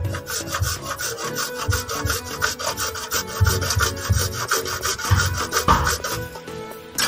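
A hand-held hacksaw blade sawing through an orange PVC sink drain pipe in quick, even back-and-forth strokes, cutting away the old drain pipe.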